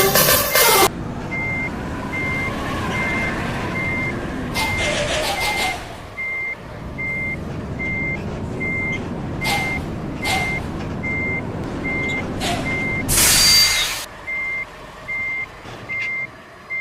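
Tour bus reversing alarm beeping steadily, one short tone about every 0.8 seconds, over the low rumble of the bus's engine. Several short hisses of air are heard, and a loud one about 13 seconds in, after which the rumble drops away.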